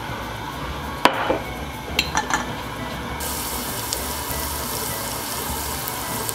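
Minced garlic frying in olive oil in a pan, with a steady light sizzling hiss that sets in about three seconds in. A sharp knock comes about a second in, and a few light clicks follow around two seconds.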